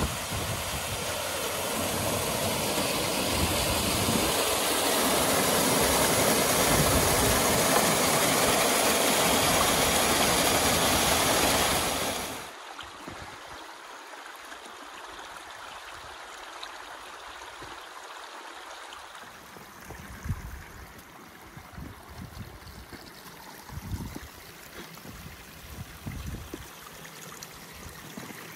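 A small moorland waterfall and stream rushing steadily, growing louder over the first few seconds. It cuts off suddenly about twelve seconds in, leaving a much quieter hiss with scattered soft footsteps on a stony path near the end.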